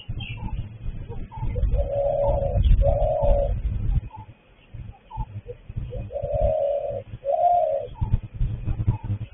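A dove cooing: two pairs of drawn-out coos, the second pair about four seconds after the first. Underneath is a low rumble, with a few short faint bird chirps.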